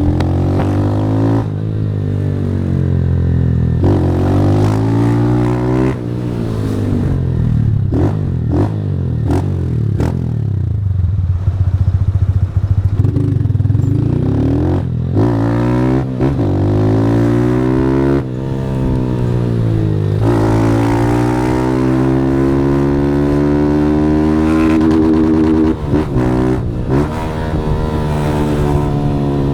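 Motorcycle with an aftermarket Fortuna Trioval exhaust accelerating hard through the gears. Its pitch climbs and drops back again and again as it shifts, with a few sharp cracks between shifts.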